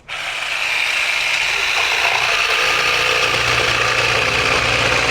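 Electric jigsaw switched on, its motor coming up to speed within about a second and then running steadily with a rattling buzz as the blade saws through wood.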